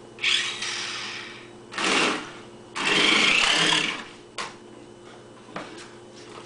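Small electric motors of a remote-control stunt car whirring in three bursts as it drives and spins: a first burst of about a second, a short one, then a longer one a little past halfway.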